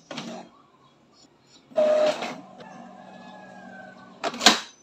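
Epson L3110 inkjet printer's mechanism running as it starts a print job: a short burst of noise, a steady motor hum with a faint whine, then a loud clatter near the end. This is the carriage clattering on a job that fails with a false paper-jam error, a fault the technician traces to a damaged sensor flex cable.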